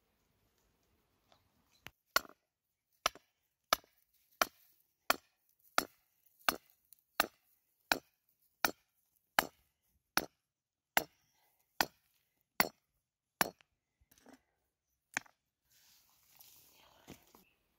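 A hand-held stone pounding a tether stake into dry, hard ground: about sixteen sharp, even knocks, roughly one every 0.7 seconds, then two fainter ones. A soft rustle follows near the end.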